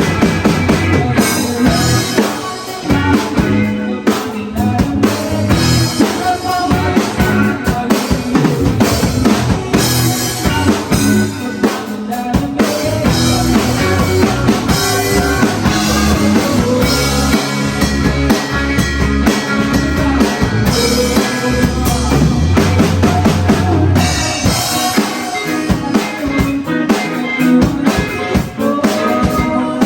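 Live band playing a rock song, with the drum kit's kick and snare hits driving a steady beat under the other instruments.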